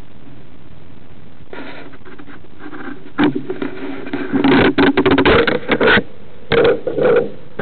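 Electric motor and propeller of a Dynam Pitts Python RC biplane run up in short, uneven bursts, the prop wash rushing over the onboard camera's microphone. A steady hiss comes first; the bursts start about a second and a half in and are loudest between about four and a half and six seconds.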